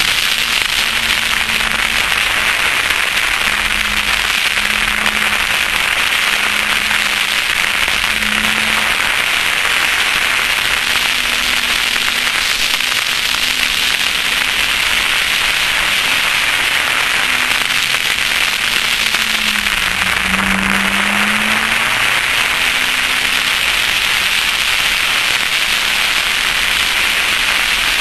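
Loud, steady crackling hiss of wind and road noise on the car-mounted camera's microphone, with the 2001 Chevrolet Cavalier Z24's 2.4-litre four-cylinder engine faintly underneath as the car is driven through an autocross course. The engine note drops briefly about twenty seconds in, then climbs again.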